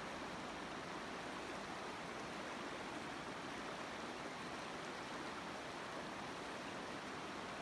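River water running over shallow riffles, a steady even rush.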